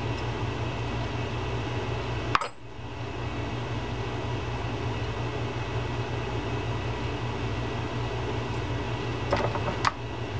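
Steady mechanical hum in a small workshop, with one sharp click about two and a half seconds in and a few light clicks near the end as a tiny set screw is worked into the cap nut on a fishing reel's handle.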